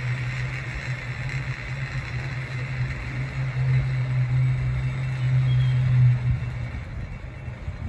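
Steady low rumble of the water-powered cliff railway car running on its track, growing louder past the middle and dying away about six seconds in.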